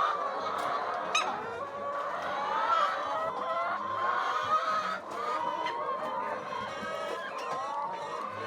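A flock of chickens clucking and calling over one another without a break, many birds at once.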